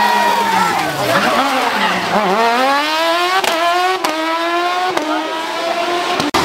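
Porsche 911 rally car's flat-six engine coming off the throttle into a hairpin, its pitch falling, then accelerating hard out of it with the pitch rising steadily and three sharp cracks along the way. The sound breaks off abruptly near the end.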